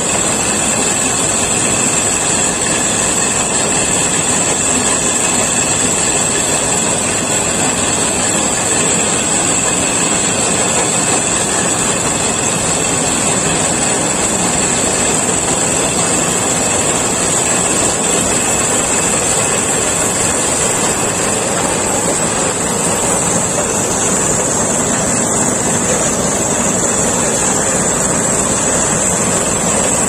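Small BRRI rice combine harvester running steadily as it cuts standing paddy: a loud, even mechanical din with no break.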